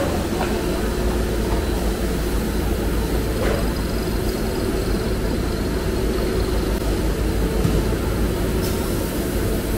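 Industrial blow molding machines running: a steady low machine drone with a faint steady hum above it and a couple of faint clicks.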